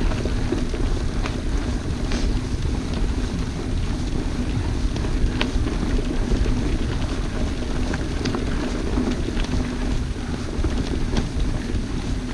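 Mountain bike rolling fast along a dirt trail: a steady rush of wind on the microphone with tyre rumble, and a few sharp clicks and rattles from the bike over bumps.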